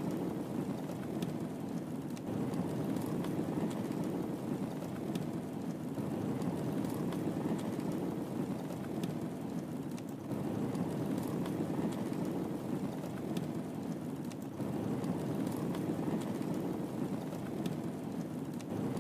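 Wood fire burning in a fireplace: a steady low rush of flames with sparse, sharp crackles scattered through.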